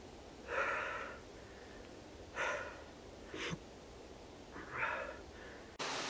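A man blowing his breath hard into his cupped, gloved hands to warm them against the cold, four breaths with pauses between. Near the end a steady hiss of TV-static noise cuts in abruptly.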